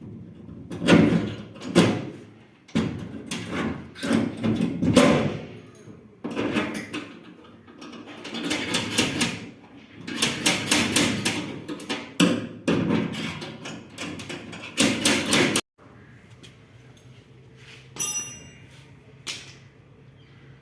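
Irregular metal clanks, knocks and scrapes from parts being handled and fitted on a combine harvester under repair. The sound cuts off sharply about three-quarters of the way through to a quieter stretch with one brief rattle.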